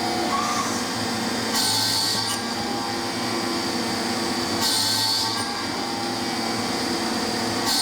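Solid carbide drill bit drilling in a machine tool: a steady machine hum, broken three times, about three seconds apart, by a high-pitched cutting noise that lasts under a second each time, as each hole is drilled.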